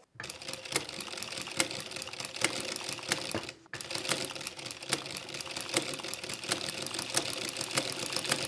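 Juki DDL-900B industrial lockstitch sewing machine with a ruffler presser foot, sewing a ruffle onto a hem: a fast, even run of clicks over a steady hum. It stops briefly about three and a half seconds in, then starts again.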